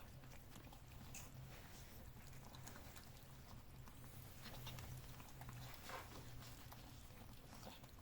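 Kittens eating canned wet cat food: faint chewing and scattered small clicks, over a low steady hum.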